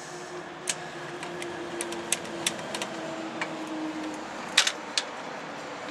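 Scattered sharp metallic clicks and clinks of a hand socket wrench running in a bolt on a gearbox bell housing, with a louder cluster of clicks about four and a half seconds in.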